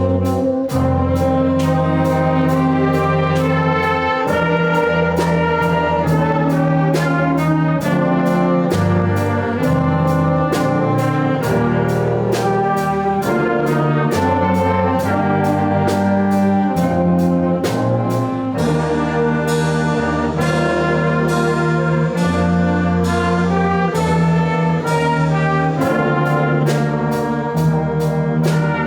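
Instrumental holiday music played by a brass ensemble, trumpets and trombones, with a steady percussive beat.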